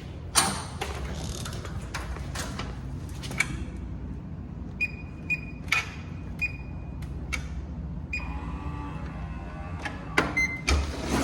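Clothes dryer running with a steady low hum. A sharp click comes near the start, then a series of short electronic beeps, roughly every half second, with a longer beep a little past the middle, like keys pressed on the dryer's control panel.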